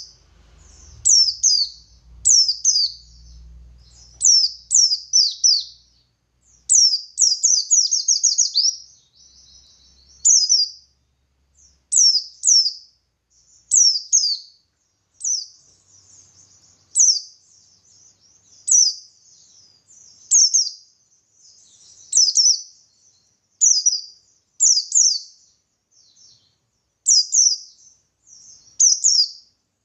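Oriental white-eye (pleci buxtoni) singing: repeated sharp, high, down-slurred chirps in quick groups, about one group every second or two, joined by thin twittering trills.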